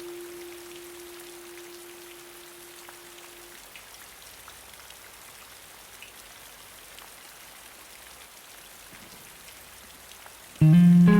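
Steady rain falling, with scattered drop ticks. A last sustained guitar note fades out in the first few seconds, and a guitar chord comes in loudly just before the end.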